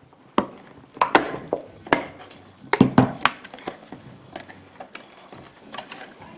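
Stiff clear plastic blister packaging being cut with a folding knife and pried apart by hand: a run of irregular sharp cracks and crinkles, thickest in the first half.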